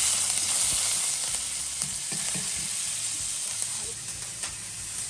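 Tempering sizzling in hot oil in a pan: mustard seeds, cumin, dals and curry leaves frying with a steady hiss and occasional pops.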